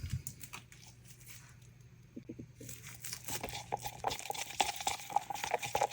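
A stir stick scraping and tapping in a small plastic cup as pigment is mixed into resin. A few light clicks come first, then quick, continuous stirring from about three seconds in.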